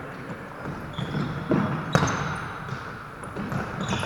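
Football being played: the ball is kicked with sharp thuds, about one and two seconds in, among short high squeaks of shoes on the court floor.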